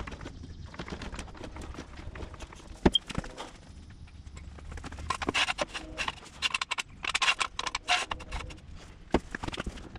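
Hydraulic floor jack being pumped to lift a pickup truck, then a steel jack stand set under it: a run of metal clicks and clanks, with one sharp knock about three seconds in and quick clusters of clicking in the second half.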